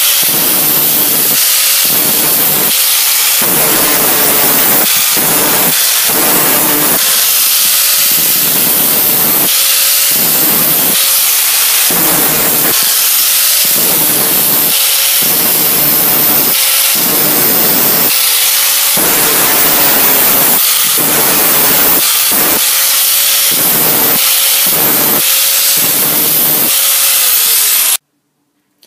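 Hand-held angle grinder running loud, its disc grinding a hardened tool-steel cutting blade to a sharp tip: a harsh grinding hiss over the motor's steady whine, swelling and easing in repeated passes about once a second. It cuts off suddenly near the end.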